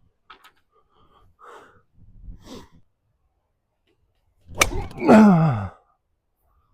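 A sharp click of a golf club striking the ball, followed straight away by a man's falling groan.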